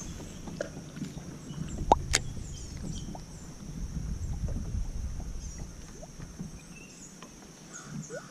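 Water lapping and sloshing against a fishing boat's hull, with a few light knocks about two seconds in and a steady high hiss.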